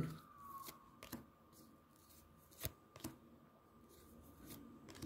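Tarot cards being drawn from the deck and laid down on a table: a few faint snaps and taps, the sharpest a little past halfway.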